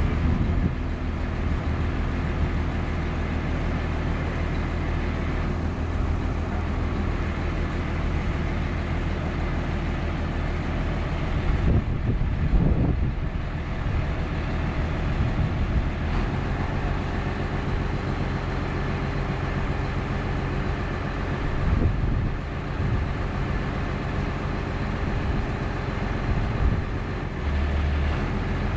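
A heavy engine running steadily with a low, even hum. A louder, noisier passage comes about twelve seconds in, and smaller rises later on.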